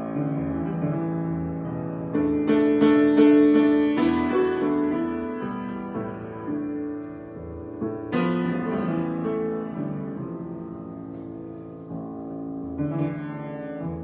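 Grand piano improvisation: full chords struck and left to ring, with a run of loud repeated chords about two to four seconds in, then new, softer swells about eight and thirteen seconds in.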